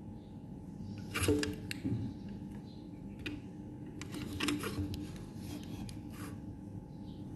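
Handling noise from a phone in a tripod clamp being held, tapped and turned close to the microphone: a few soft knocks and rubs over a steady low room hum.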